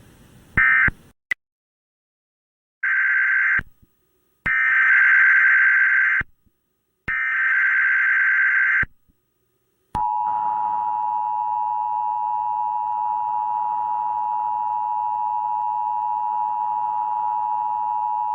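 Emergency Alert System signalling tones. The last short burst of the previous alert's end-of-message code ends about a second in. Then come three bursts, each one to two seconds long, of the shrill warbling SAME data header announcing the next alert, and from about ten seconds in the steady two-tone EAS attention signal holds for about eight seconds.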